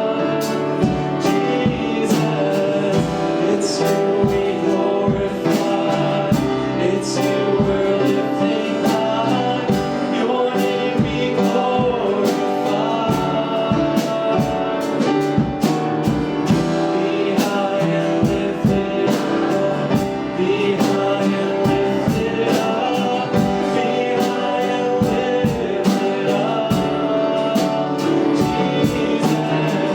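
Worship music: singing over a band with a steady drum beat.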